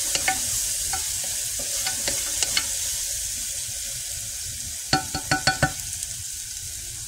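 Minced garlic sizzling in olive oil in a small saucepan as a wooden spoon stirs it, the garlic's water cooking off as it begins to brown. A quick run of sharp knocks comes about five seconds in.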